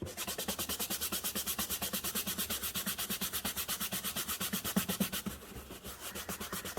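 A brush scrubbing soapy seatbelt webbing back and forth in fast, even strokes, about nine a second, getting softer after about five seconds.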